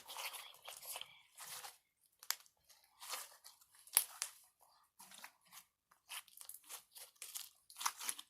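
Slime being worked by hand, likely kneading the blue colour through it: a run of short, irregular crackling and tearing sounds.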